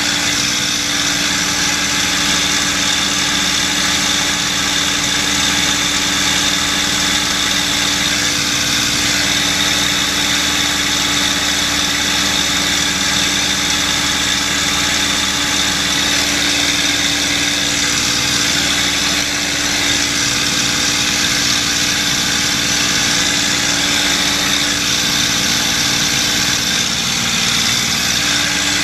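P-51D Mustang's Packard Merlin V-12 engine running steadily in flight, heard from inside the cockpit with propeller and airflow noise mixed in.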